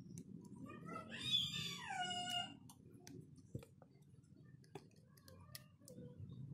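One long, high, meow-like animal call about a second in, rising and then falling in pitch. Afterwards come a few light clicks of metal tweezers working on the phone's circuit board.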